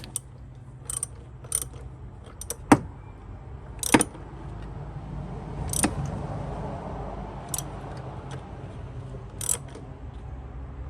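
Metal hand tools clinking and knocking against each other and the engine while working on a spark plug: a handful of sharp, irregularly spaced clinks over a steady low hum.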